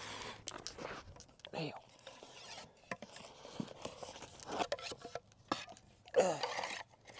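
An arrow being worked loose and pulled out of a stack of layered corrugated cardboard: scattered crunches, scrapes and tearing of cardboard, with a couple of short vocal sounds from the person pulling.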